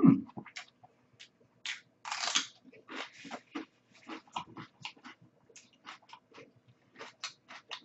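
Close-up mouth sounds of someone chewing a soft ice-cream sandwich: irregular wet clicks and lip smacks with a couple of longer squelchy bursts, the loudest about two seconds in. It opens with a brief low rising vocal hum.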